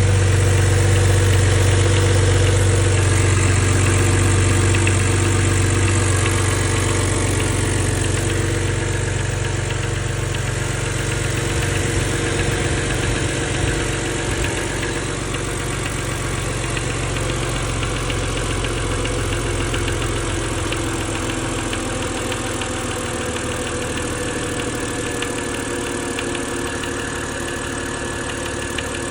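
BMW N52 straight-six engine idling with a knocking sound. Its low drone eases over the first fifteen seconds or so, then the idle runs steadily.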